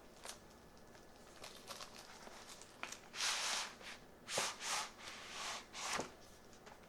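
Cardboard product box being handled and slid open: several short scraping swishes, the longest a little over three seconds in, among a few light taps.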